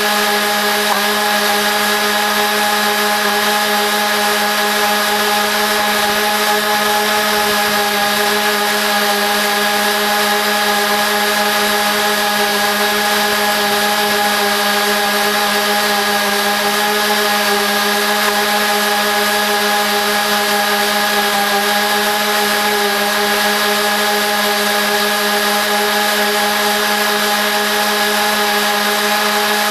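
Lawn mower engine running at a steady speed, played back four times faster so its note is raised into a high, even, buzzing whine.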